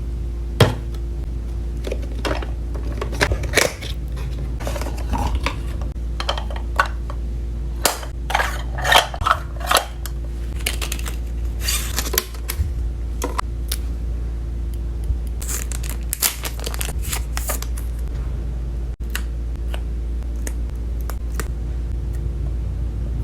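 Packaging and small plastic toy pieces being handled: irregular clicks, taps and rustles, over a steady low hum.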